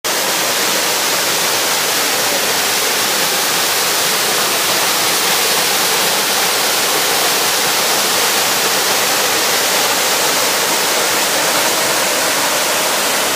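Mountain waterfall: a stream pouring down a series of rocky cascades, a loud, steady rush of water.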